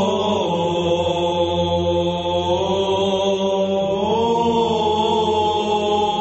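Byzantine Orthodox chant: a slow, drawn-out melodic vocal line over a steady low held drone (the ison). The melody dips just after the start and climbs about two and a half and four seconds in.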